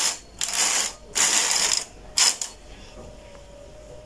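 Carriage of a Brother knitting machine pushed along the needle bed, knitting one row: the needles being worked by the carriage give a mechanical rattle in about four quick surges over the first two and a half seconds.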